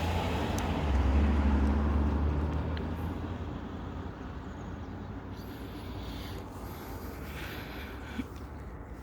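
A motor vehicle passing by: a low engine rumble that swells about a second in and then fades away over several seconds.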